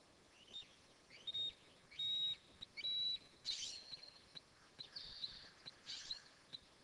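Western scrub-jays giving a string of short, harsh scolding calls at a perched red-tailed hawk, mobbing it. From about four seconds in, a steady run of short high ticks, two or three a second, goes on beneath the calls.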